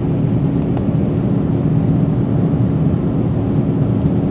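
Airbus A380 cabin noise in flight: an even, unbroken low rumble of engines and airflow with a steady hum running through it.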